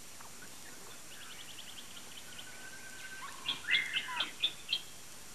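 Wild birds calling in the woodland: a faint rapid trill, then a drawn-out whistle, then a run of sharp chirps and a louder whistled note about three and a half seconds in.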